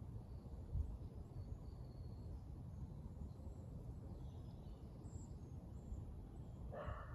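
Wind buffeting the microphone as a steady low rumble, with faint scattered bird chirps. A brief louder call comes near the end.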